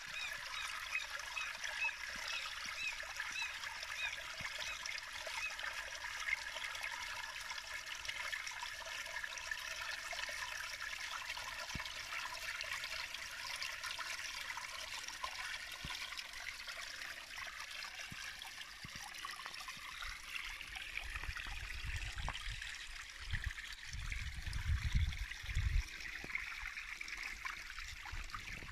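A small brook trickling and running over rocks, steady throughout. A few low thumps on the microphone come near the end.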